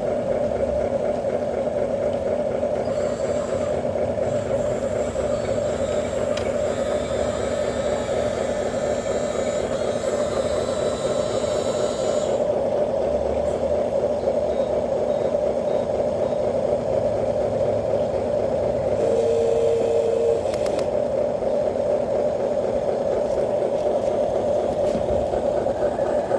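Remote-control truck running with a steady, unchanging engine-like drone, and one short steady beep about nineteen seconds in.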